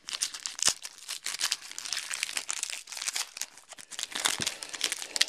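Foil wrapper of a football trading card pack being torn open and crinkled by hand: a dense, continuous run of crackling and rustling with a few sharper snaps.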